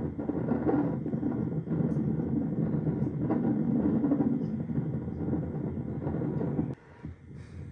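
Loud, steady low rumbling noise that drops off sharply near the end.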